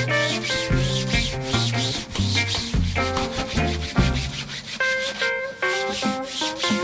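Background music with a stepping bass line and short melodic notes, mixed with rapid rhythmic rasping strokes, the sound of hand-sanding a carbon fibre part.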